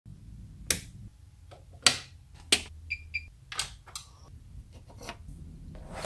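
Wall toggle switches being flicked, a series of sharp, irregularly spaced clicks, with two short high beeps about halfway through over a low hum.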